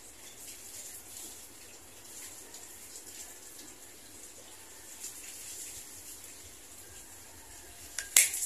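Faint handling of a homemade slingshot rifle being readied over a steady high hiss, with one sharp click about eight seconds in.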